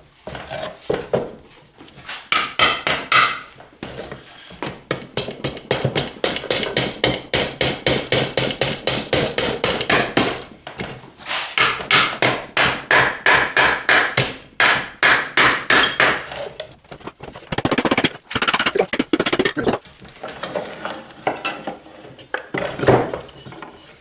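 Hammer tapping on the sump of a Briggs & Stratton vertical-crankshaft engine to break it loose from the crankcase, in quick runs of metallic taps, several a second, with a few separate knocks near the end.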